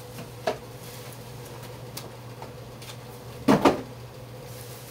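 Two quick knocks close together about three and a half seconds in, with a softer click near the start, over a steady low electrical hum.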